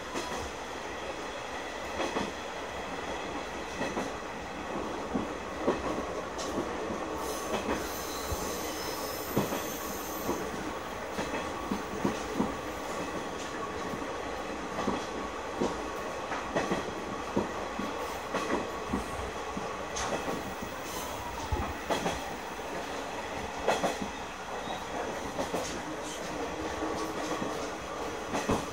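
Running sound of a KiHa 100 diesel railcar heard from inside the cab: a steady drone from the engine and running gear, with irregular clacks of the wheels over rail joints and a thin high squeal about eight to ten seconds in.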